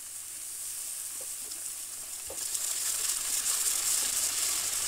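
Sliced onions, tomatoes and ginger-garlic paste sizzling in hot oil in a frying pan while a silicone spatula stirs them. The sizzle grows louder about halfway through.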